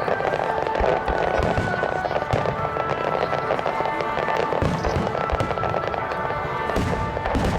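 Aerial fireworks going off: repeated bangs and low thuds over a dense, continuous crackling, with music playing throughout.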